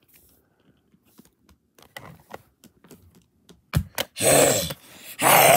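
Plastic animal figurines clicking and tapping against each other, with two sharp knocks just before four seconds in. Then two loud growling noises made with a person's voice for the animals' fight.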